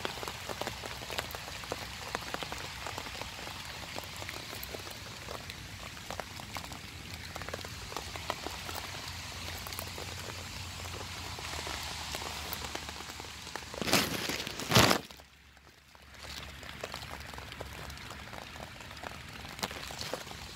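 Steady light rain pattering close by, a fine crackling hiss. About 14 seconds in come two loud knocks a second apart, then the sound drops almost to nothing for under a second before the rain resumes.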